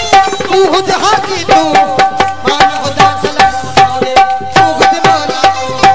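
Instrumental passage of live devotional folk music: a hand drum beats a brisk, regular rhythm over a steady held drone, with a melody played on a long-necked string instrument and harmonium.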